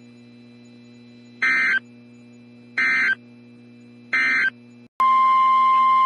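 Three short raspy digital data bursts of the EAS/SAME end-of-message code from a NOAA Weather Radio broadcast, each about a third of a second long and about 1.4 s apart. Then, after a sudden drop to silence, the loud steady 1050 Hz warning alarm tone begins about five seconds in, marking the start of the next warning.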